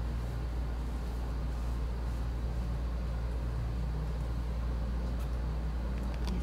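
Steady low rumble of room background noise, with a few faint ticks near the end; it cuts off abruptly at the end.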